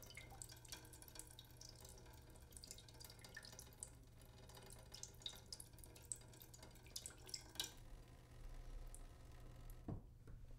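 A leaking sink: water dripping irregularly into the basin, faint, over a steady low hum. The drips come quickly at first and thin out after about eight seconds.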